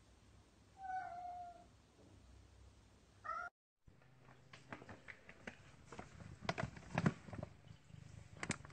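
A cat meows once, with a second short rising meow about two seconds later. Then comes a run of irregular rustling and knocking that gets louder toward the end.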